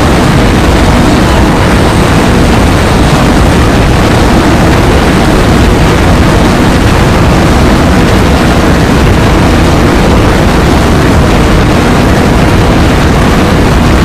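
Loud, steady, heavily distorted noise, heaviest in the bass, with no pitch, rhythm or breaks in it.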